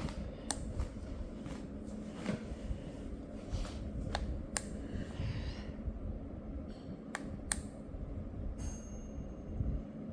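A plastic twisty puzzle being turned by hand: irregular, scattered clicks as its pieces turn and snap into place.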